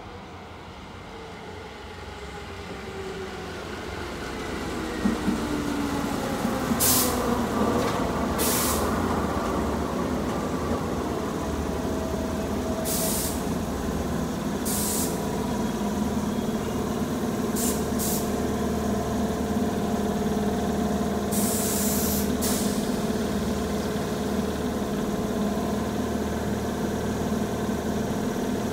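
Electric train pulling in and stopping at the platform. It grows louder as its motor whine falls in pitch while it brakes. A series of short hissing bursts of air from the brakes follows, and the stopped train stands with a steady hum from its equipment.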